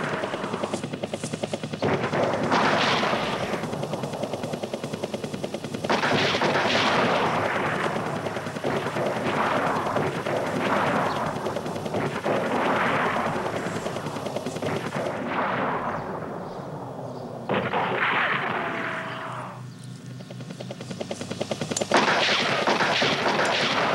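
Long volleys of rapid automatic gunfire, one burst after another, each starting abruptly, with a short lull near the end before a fresh volley.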